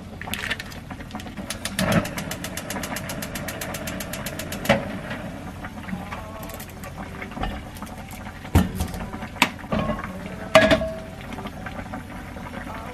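Gas stove igniter clicking rapidly, about eight clicks a second for some three seconds, as the burner is lit. Then a few sharp metal knocks and clanks as the frying pan is handled on the stove, one of them ringing briefly.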